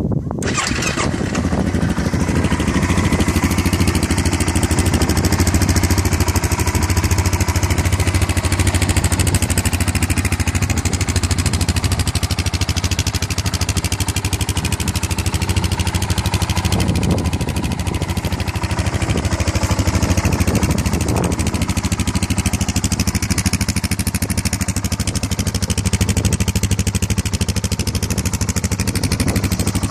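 Honda TRX700XX sport ATV's 686 cc single-cylinder four-stroke engine idling steadily, still cold just after a cold start.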